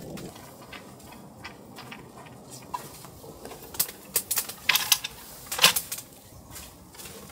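Scattered clicks and light knocks of camping gear being handled and set down, busiest about halfway through.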